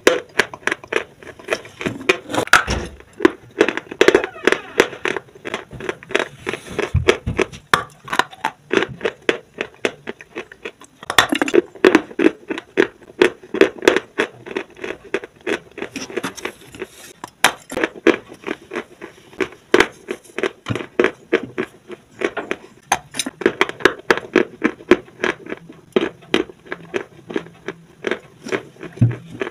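Close-miked biting and chewing of dry white chalk: rapid crisp crunches, several a second, with a few louder bites now and then.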